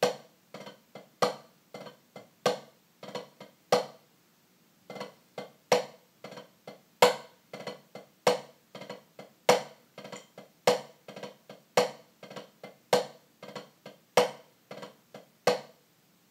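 Wooden drumsticks striking a rubber practice pad in a drum rudiment played with the Moeller technique: a loud accented stroke about every 1.2 seconds with softer taps between. The playing stops for about a second near 4 seconds in, then resumes and ends shortly before the close.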